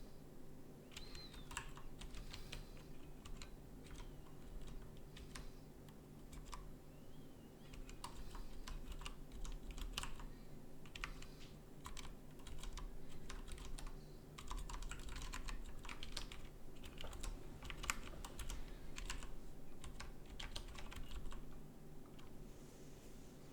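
Keys of a split keyboard clicking in quick, irregular runs of typing, denser through the middle, over a faint steady hum.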